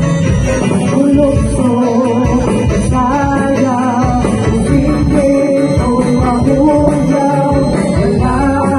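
Live band playing a Christian worship song: amplified vocals over electronic keyboard, with a steady beat of high ticks.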